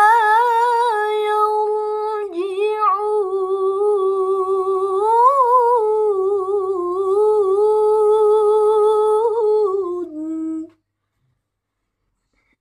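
A young woman's voice reciting the Quran in melodic tilawah style, drawing out one long ornamented note at the close of a verse, its pitch wavering and rising about halfway through. It stops abruptly about ten and a half seconds in.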